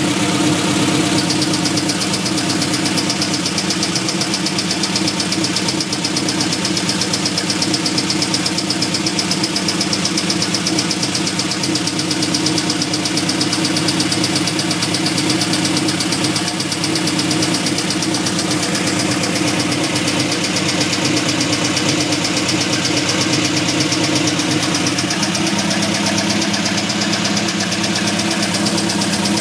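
An engine idling steadily with a fast, even knocking in its sound, the unexplained strange noise that the owner wants diagnosed.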